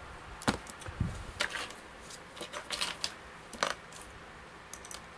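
Hard plastic action figures being handled and set down on a cutting mat: a scattering of light clicks and clacks, with a dull thump about a second in.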